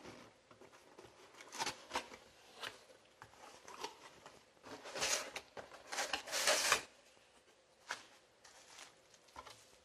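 A cardboard box being handled and opened by hand: scattered scrapes and taps from the flaps and the box, with a denser stretch of rustling about five to seven seconds in.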